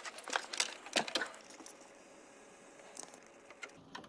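Light clicks and knocks of the CD player's plastic casing and parts being handled, several in quick succession in the first second and a half, then a few faint ticks.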